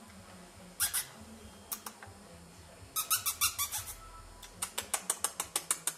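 Puppies' claws clicking on a tiled floor as they scamper: a few single clicks, then two quick runs of clicks at several a second.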